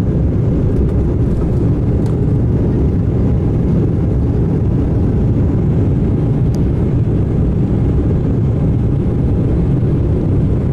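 Steady low rumble of a jet airliner heard from inside the cabin as it rolls along a wet runway, engines and wheels together.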